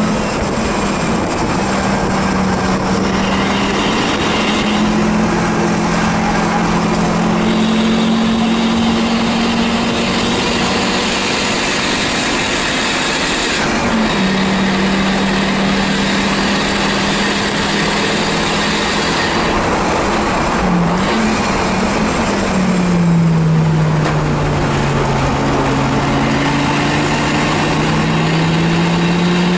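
1984 Audi 4000 race car's engine running hard under racing load, heard loud inside the stripped, caged cabin along with road and wind noise. Its pitch holds, jumps sharply about halfway through, wobbles briefly about two-thirds in, then sinks and climbs again near the end.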